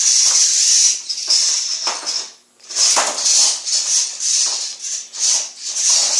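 A small VEX IQ robot's plastic drive motors and gears driving it onto the bridge ramp: a high, hissy rasping whir in short repeated bursts, with a brief pause about two and a half seconds in.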